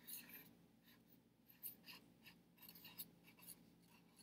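Felt-tip marker writing a word on a clipboard board: faint short scratchy strokes in small clusters, with brief pauses between letters.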